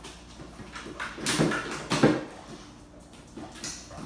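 A Vizsla rummaging with its head inside a cooler for a can of beer, with two louder knocking, rattling sounds about a second or two in.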